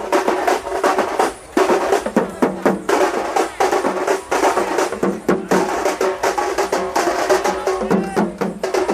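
Fast, dense live drumming, stroke after stroke, over a held pitched tone, with a brief drop in loudness about a second and a half in.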